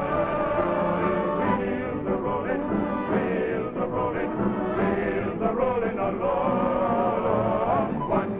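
Orchestral music with a choir singing.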